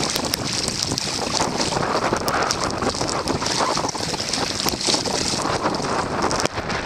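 Strong wind buffeting the microphone over a steady rush of choppy lake water, with scattered small ticks throughout.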